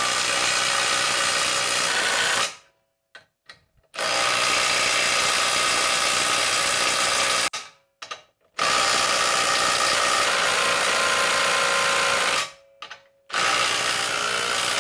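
DeWalt DCF890 3/8-inch cordless impact wrench hammering nuts tight onto bolts in a steel beam, in four runs of about three seconds each with short pauses between.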